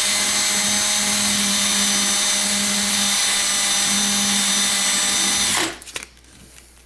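Cordless drill running steadily at speed, spinning a toy truck's axle chucked in it to clean off rust and corrosion. The motor whine stops suddenly about five and a half seconds in.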